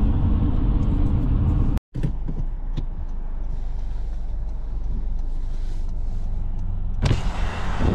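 A car driving, heard as a steady low road and engine rumble. It cuts out for an instant about two seconds in, and a rush of wind noise comes in near the end.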